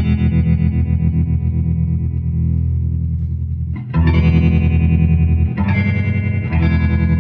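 Electric guitar chords played through a 1967 Fender Vibrolux Reverb tube amp with its vibrato on, the volume pulsing quickly and evenly. A chord rings on, and new strums come about four seconds in and twice more near the end. The strong pulse is the vibrato circuit working properly after its three oscillator capacitors and LDR were replaced.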